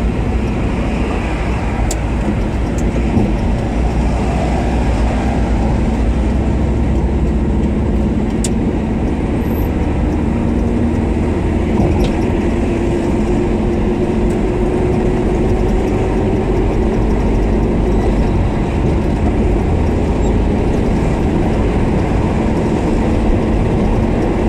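Car engine and road noise heard from inside the cabin while driving, a steady low rumble. The engine note rises slowly through the middle as the car picks up speed.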